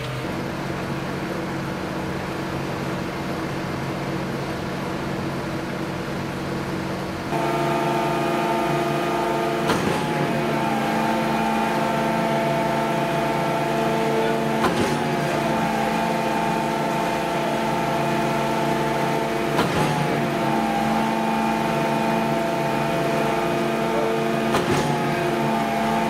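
SANY SY37 truck-mounted concrete pump running: a steady engine drone, louder from about seven seconds in, with a sharp knock about every five seconds as the pumping cylinders change stroke and the swing valve shifts.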